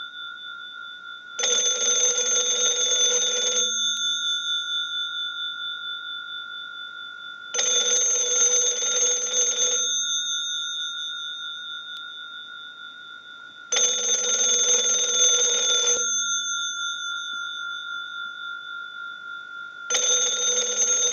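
Western Electric bell box's two gongs rung by its telephone ringer on a standard ring cycle from a line test set: four bursts of rapid ringing, each about two seconds long and six seconds apart, with the gongs humming on and fading between bursts. This is the final ring test of the box after repair.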